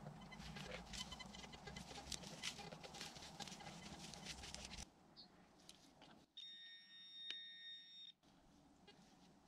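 Rustling and small clicks of footsteps through grass, then, after a break, a metal detector's steady high-pitched beep held for about two seconds, the signal of a metal target in the ground.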